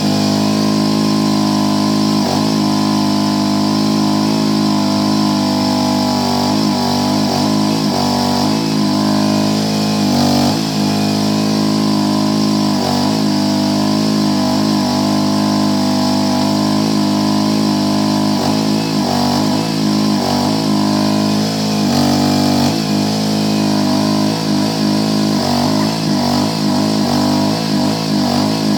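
The small gasoline engine of a Rippa Mule Trac 1-ton mini excavator running steadily while it digs, its pitch briefly sagging and recovering every few seconds.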